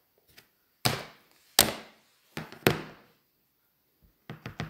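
Hard plastic knocks of a Stampin' Up ink pad case being handled, four sharp knocks in the first three seconds, then near the end a quick run of light taps, about six a second, as an acrylic stamp block is dabbed onto the Papaya ink pad to ink it.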